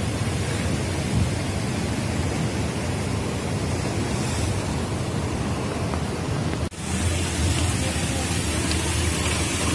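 Steady roar of city street traffic, the engines and tyres of cars, trucks and buses at a busy junction. It drops out for an instant about seven seconds in, then carries on.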